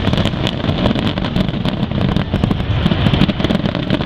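Aerial fireworks going off in rapid succession: a dense run of sharp crackles over a continuous low rumble of bursts.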